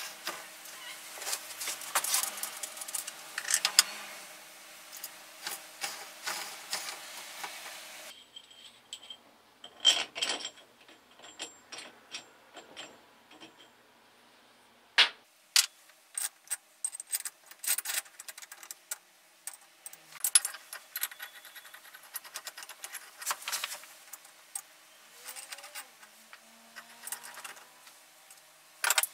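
Steel parts of a bearing separator and puller clinking and rattling as they are handled and fitted together around a motor shaft: irregular sharp metallic clicks and clatters.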